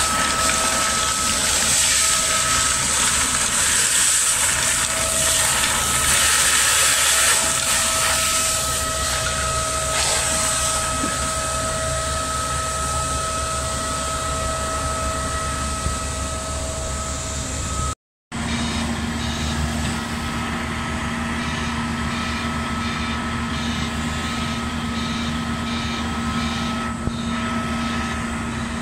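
Rail engineering machinery running steadily, with a steady high whine over the engine noise. After a sudden cut about two-thirds of the way in, a road-rail excavator's engine runs with a lower steady hum.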